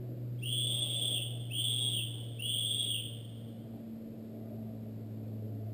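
Three high-pitched blasts on a whistle, each just under a second long, in quick succession: the three-blast signal that help is needed. A steady low hum underlies them.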